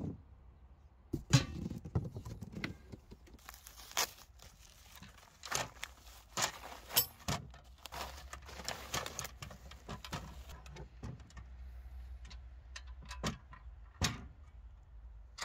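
Metal tiller parts clinking and packaging being handled during unpacking: a run of scattered, irregular sharp clinks and knocks with some rustling.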